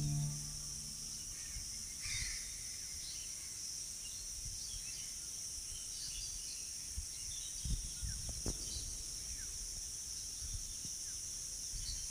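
Steady high-pitched insect chirring, like crickets, with a few faint bird chirps scattered over it and a few soft low thumps near the end. The last of the backing music fades out at the very start.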